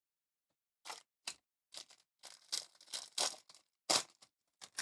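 Baseball trading cards being handled and slid across one another: a run of short, sharp card-stock scrapes and rustles starting about a second in, the loudest one near the end.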